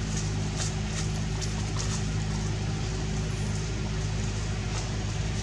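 A motor running steadily, a low even hum that does not change, with a few faint brief rustles and high chirps over it.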